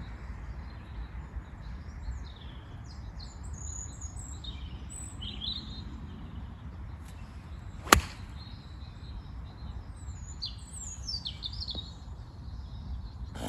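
A single sharp crack about eight seconds in: a golf club striking the ball on an approach shot played from the rough. Birds chirp and trill throughout over a low background rumble.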